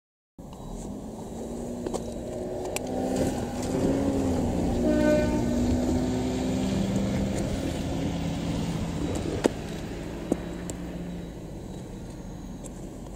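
KiHa 48 diesel railcar engine running and building up, its pitch bending as it works, with a short horn toot about five seconds in. The engine then eases off and fades, with two sharp clicks near the end.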